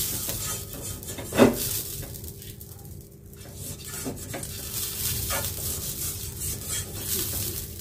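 Silicone brush swept back and forth over a hot nonstick frying pan, spreading oil, with a faint sizzle. One sharp tap about a second and a half in.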